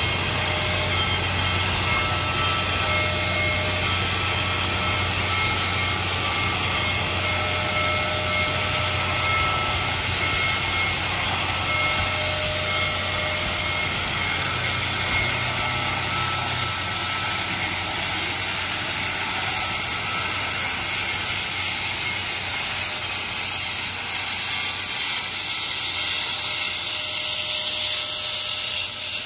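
Union Pacific Big Boy 4014 steam locomotive giving off a steady hissing rush with a low hum underneath; the hum fades out near the end as the hiss grows brighter.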